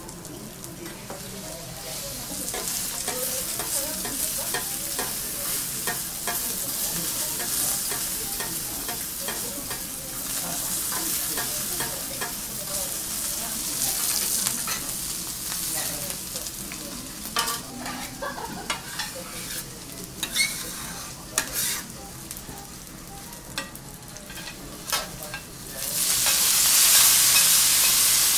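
Food sizzling on a hot steel teppanyaki griddle, with scattered clicks and scrapes of a metal spatula against the plate. About 26 seconds in the sizzle jumps louder as cabbage and bean sprouts hit the griddle and steam.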